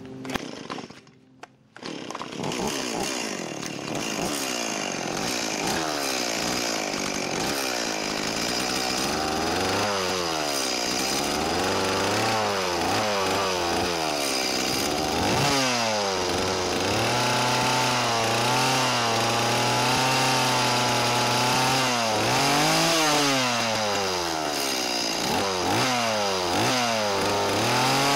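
Stihl 017 two-stroke chainsaw starting about two seconds in, then running and revved up and down over and over, held at high revs for several seconds past the middle. The revving engages the clutch so the chain oil pump turns.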